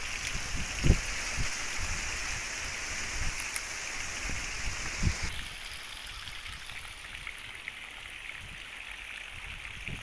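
Strong wind rustling through garden foliage and banana leaves, a steady hiss with a few gusts thumping on the microphone. The hiss turns noticeably softer about halfway through.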